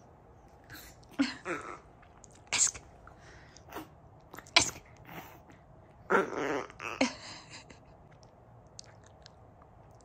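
A long-haired chihuahua, wet from a bath, snorts and sneezes in short sharp bursts while rubbing its face into a towel. There are about eight bursts, the longest around six seconds in, and it goes quiet near the end.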